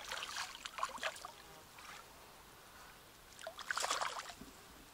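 A small brown trout thrashing at the water's surface as it is brought to the net, splashing in two short bouts, the second about three and a half seconds in.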